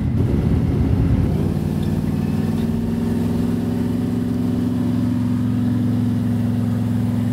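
Car engine heard from inside the cabin while driving: uneven for about the first second and a half, then holding a steady note at constant revs.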